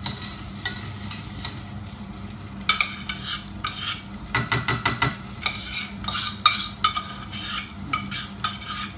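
Raw rice grains being stirred and scraped around a pan as they toast in hot oil with ginger, with a light sizzle; the stirring strokes come quicker and louder from about three seconds in. This is the dry-frying stage of congee, before the water goes in.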